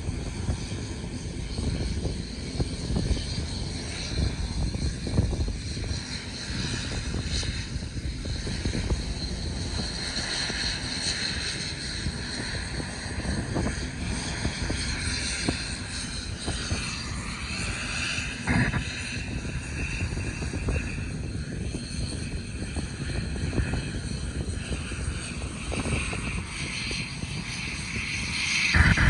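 ATR 72-600's Pratt & Whitney PW127M turboprop engines running at low power as the aircraft taxis, a steady propeller drone and turbine whine, the pitch bending briefly about two-thirds of the way in.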